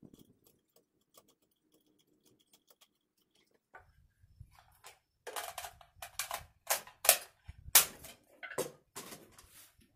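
Metallic clicks and knocks of an AR-15 rifle being handled on a shooting rest. A few faint ticks come first; from about four seconds in there is a quick run of sharp clicks and clacks.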